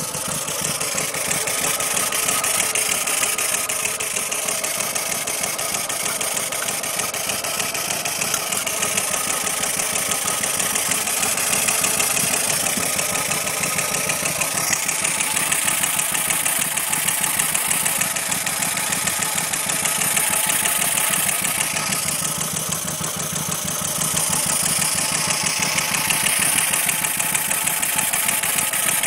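Austin-Healey Frogeye Sprite's four-cylinder BMC A-series engine running steadily, its speed rising and falling a little. It has just been brought back to life after about 29 years of sitting, with a new coil, condenser and rotor fitted.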